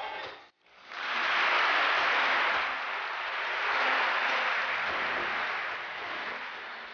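Audience applauding in a large hall after a karate kata: a dense, even clatter of clapping that swells up about a second in, wavers and dies away near the end.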